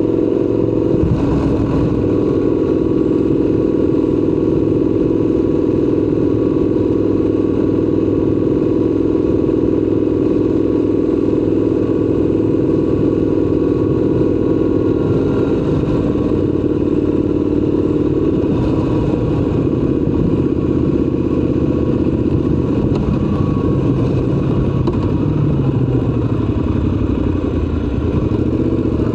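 Triumph Scrambler 1200 XC's 1200 cc parallel-twin engine running steadily under way; near the end the engine note drops and then climbs again.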